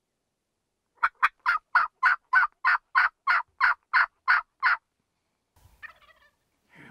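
Turkey calling: a loud, close run of about fourteen short, evenly spaced yelp-like notes, about three to four a second, lasting roughly four seconds.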